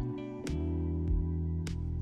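Background music: an instrumental track with plucked notes over a steady bass.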